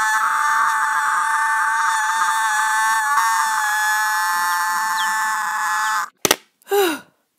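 A long high-pitched scream held on one steady note, cutting off abruptly about six seconds in, followed by a sharp click and a short cry that falls in pitch.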